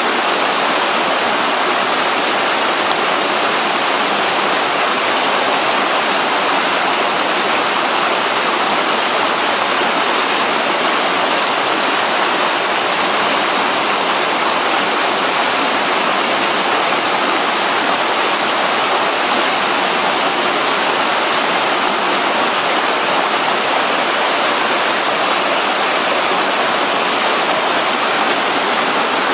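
Cascading water of a mountain stream rushing steadily.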